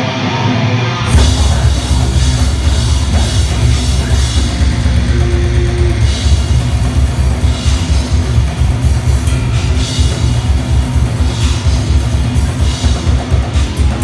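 Live heavy metal band playing loud through the PA: distorted electric guitars and bass, with the full drum kit crashing in about a second in and driving a rapid kick-drum beat under cymbals.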